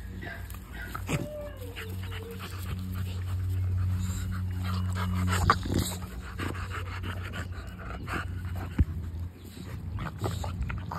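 Dogs panting, with a short falling whine about a second in. A steady low hum runs underneath, and there are two sharp knocks, about five and a half and nine seconds in.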